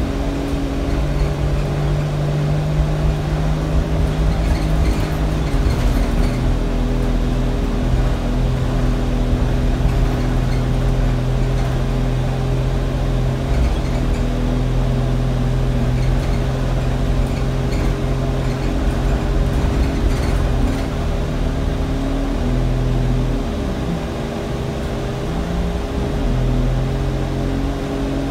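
Alexander Dennis Enviro200 bus engine running under way, heard from the rear of the saloon, with a steady whine from its cooling fan on top. The engine note shifts pitch about six seconds in, then falls and rises again near the end.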